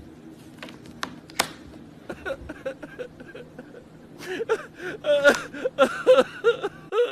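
A baby giggling in short, high-pitched bursts that build to louder laughter in the second half, with a few sharp clicks near the start.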